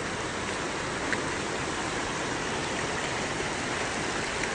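Small mountain stream rushing and splashing steadily over rocks, with one brief click about a second in.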